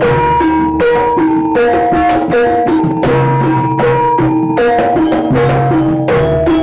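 Jaranan gamelan music: struck metallophones play a short repeating melody over drum strokes, with a low sustained tone underneath and a steady, quick beat.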